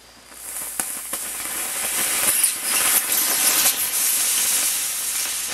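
A Trustfire 18650 lithium-ion cell venting, a loud steady hiss that starts about half a second in, with sharp crackles and pops breaking through it.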